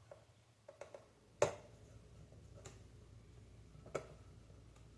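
Scattered light clicks and taps of small tools and plastic console parts being handled while an Xbox Series S is taken apart, about half a dozen in all, the sharpest about one and a half seconds in.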